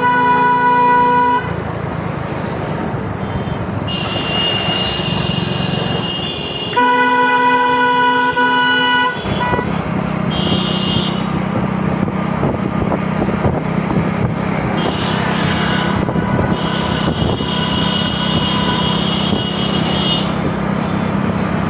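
Road-vehicle horns honking over a steady engine hum. A deeper horn sounds two long blasts, one at the start and one about seven seconds in. A shriller horn sounds several times between and after them.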